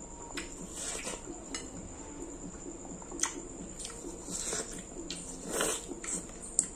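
Close-up mouth sounds of a person biting and chewing yellow watermelon: irregular wet crunches and smacks, the loudest about five and a half seconds in.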